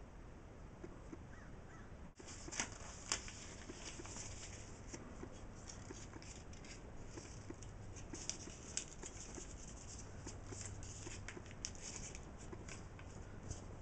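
Faint rustling and scratching of paper handled on a table, as a glass and a bottle are moved over a sheet laid on a chart, with scattered light clicks and taps. Two sharper clicks come about three seconds in.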